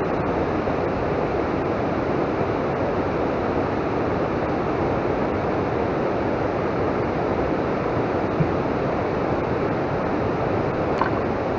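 Steady rushing noise of wind and water, even in level throughout, with one faint click near the end.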